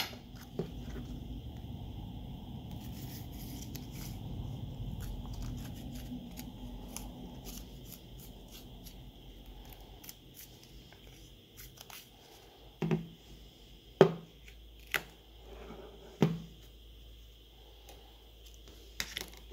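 Glued back cover of an Oppo Reno 3 phone being pried and peeled off by hand: scraping and tearing of the adhesive. In the second half come four sharp knocks as the phone and tools are handled on the table.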